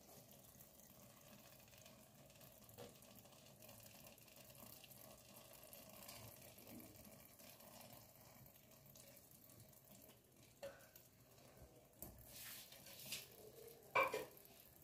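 Faint, low sizzling of fried masala in a pot as raw fish steaks are laid into it by hand, with a few soft clicks and one short knock near the end.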